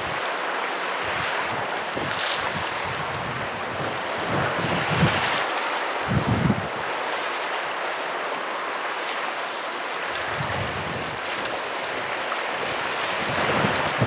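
Small waves washing onto a sand beach in a steady hiss, with wind gusting on the microphone in low rumbles twice, about five seconds in and again around ten seconds.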